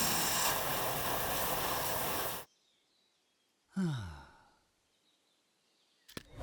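Cartoon sound effects: a loud rushing noise that cuts off suddenly after about two and a half seconds, then a short sigh-like sound falling in pitch.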